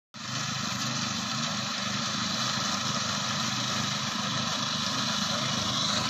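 Engine of a rice-harvesting machine running steadily, with a dense mechanical noise over its low hum.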